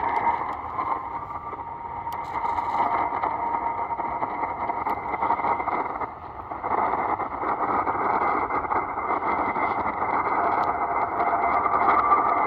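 Shortwave radio reception through a portable receiver's speaker: a steady rush of static and hiss with a weak, faint signal under it. The sound dips briefly about halfway through, then comes back up.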